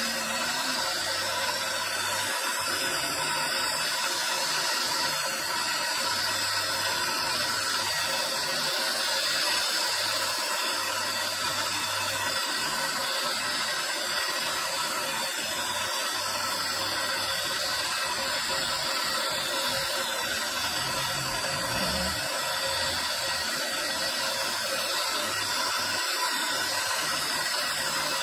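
Motor-driven spindle with a small rotary grinding bit running steadily while onyx marble is held against it and ground, giving a continuous, even machine-and-grinding noise.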